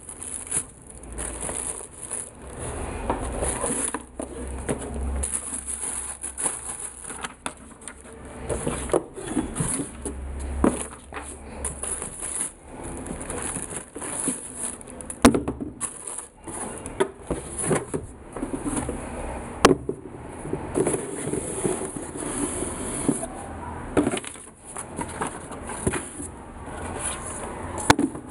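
Tissue paper rustling and cardboard shoe boxes and sneakers being handled, with irregular rustles and bumps over a steady high hiss. Two sharp knocks stand out past the middle, a few seconds apart.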